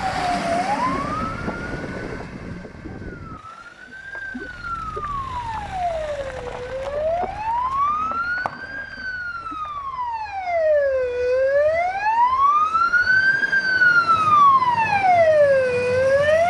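Emergency vehicle siren on a slow wail, its pitch rising and falling in long sweeps about every four and a half seconds. Rumbling noise runs under it for the first few seconds.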